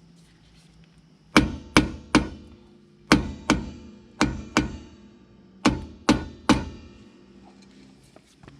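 A hammer striking the rust-seized wheel hub of a Nissan Sentra to break it loose: ten hard metal blows in quick groups of three, two, two and three, each ringing briefly.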